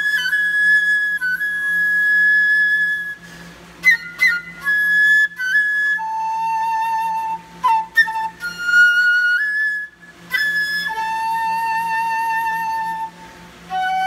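Solo concert flute playing long held notes, some with a slow vibrato, broken by quick grace-note flourishes and brief pauses between phrases.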